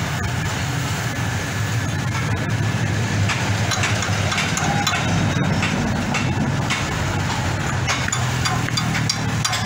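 An engine running steadily with a low hum, with scattered light clicks and taps over it.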